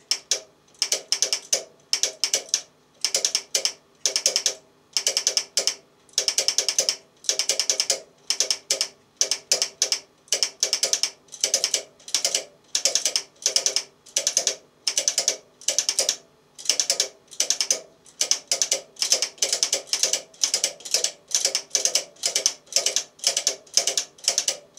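Relays in a homemade remote-controlled antenna coupler clicking in quick clusters, about one or two clusters a second, as the capacitor bank is stepped through its binary combinations toward its full value of nearly 800 pF.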